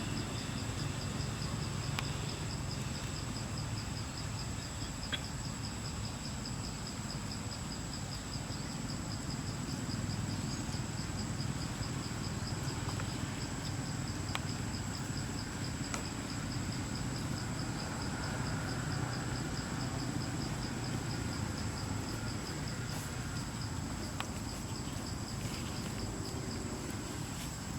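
Insects trilling steadily in two high bands, one a continuous whine and one a fast pulsing chirp, over a steady low rumble.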